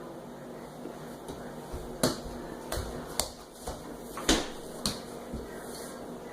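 A baby handling things at a refrigerator: five or six sharp knocks and clacks, irregularly spaced, over a few seconds, the loudest about four seconds in.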